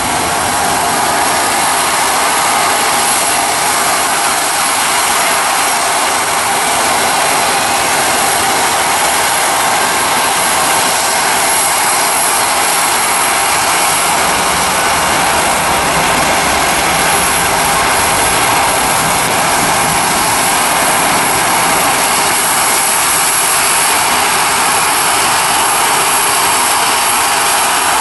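Airbus A320-family airliner's jet engines at takeoff thrust during the takeoff roll: a loud, steady rushing noise with a thin high whine above it.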